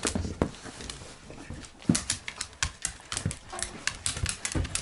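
Dogs playing and moving about, with irregular sharp clicks and taps throughout.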